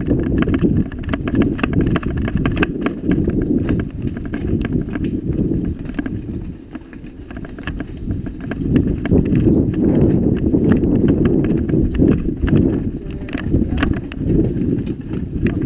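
Mountain bike rattling and knocking down a rough stone-paved path: a steady low rumble with many sharp clicks and knocks as the wheels hit the stones. It eases briefly about six to seven seconds in, then picks up again.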